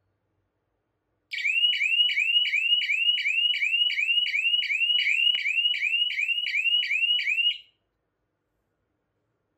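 Small electronic alarm siren of a homemade rain sensor alarm sounding a rapid repeating rising chirp, about three and a half chirps a second. It starts about a second in and cuts off suddenly about six seconds later.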